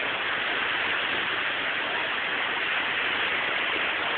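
Steady rushing hiss of surf washing on a beach, even and unbroken.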